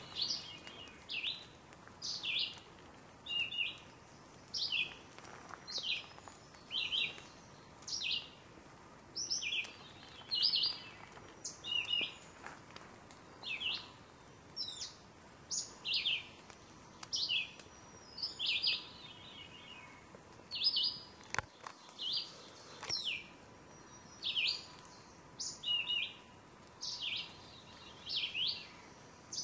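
Ruffed grouse calling: a steady series of short, high notes, each sliding downward, about one a second.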